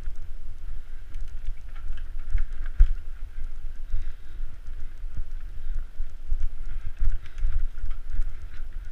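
Mountain bike rolling along a dirt singletrack, heard from a camera riding on the bike: low wind rumble on the microphone with irregular thumps, and scattered rattling clicks from the bike going over bumps in the trail.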